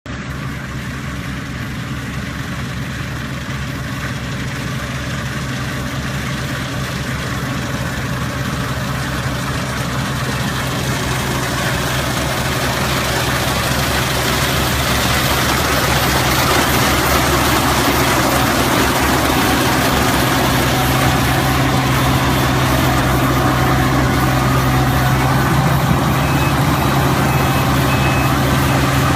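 A heavy machine's engine running steadily, with a low hum, getting gradually louder over the whole stretch. A faint repeated beep comes in near the end.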